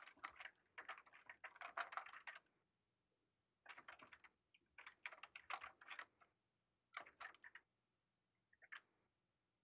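Computer keyboard typing in several short bursts of keystrokes with pauses between them, ending with a few keystrokes near the end.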